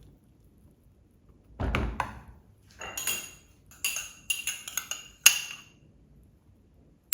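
A spoon knocking and clinking against a cooking pot: one dull knock, then a quick run of sharp ringing clinks.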